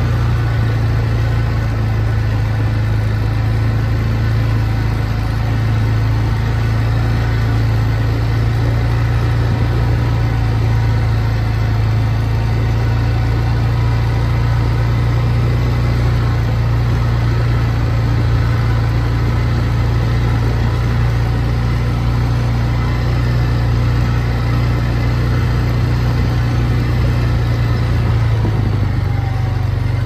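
Quad (ATV) engine running at a steady pitch as the machine is ridden along a dirt trail, a continuous drone with no revving.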